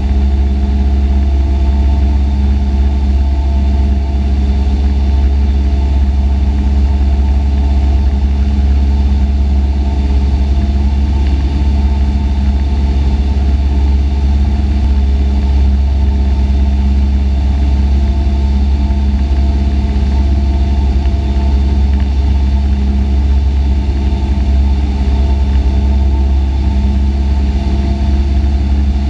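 Cessna 172's piston engine and propeller running steadily in flight, heard from inside the cockpit as a constant low drone with no change in pitch or level.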